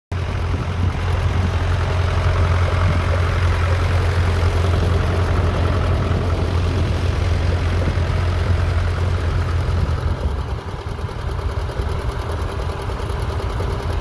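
Massey Ferguson 35 tractor's engine running steadily under load as it pulls a mounted plough through the ground. Its low note drops in level about ten seconds in as the tractor draws away.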